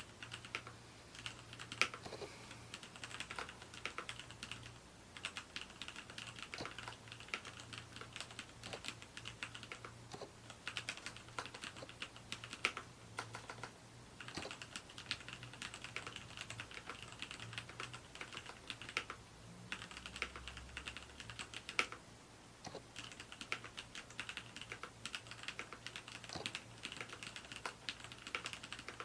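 Mechanical keyboard with lubricated Cherry MX Black linear switches (60 g), typed on steadily in fast, irregular strokes, with a couple of short pauses. A faint steady low hum sits underneath.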